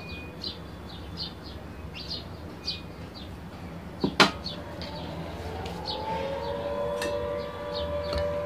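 Short high chirps about twice a second, like a bird. One sharp knock about four seconds in, fitting a steel grinder jar or utensil against a ceramic bowl. From the middle on, a distant siren-like wail rises in pitch and then holds steady.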